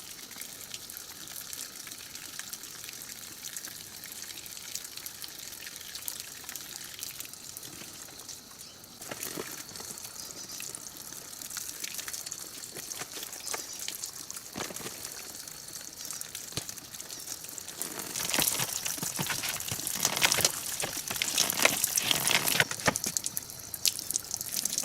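Water trickling and splashing as someone washes, with louder, more broken splashing in the last several seconds.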